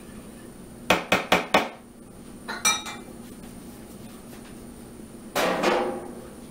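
Kitchenware knocks: four quick sharp raps about a second in, as a plastic food-processor bowl is tapped against a mixing bowl to shake out the last of the banana puree, then a couple of light clinks and a longer, louder clatter near the end.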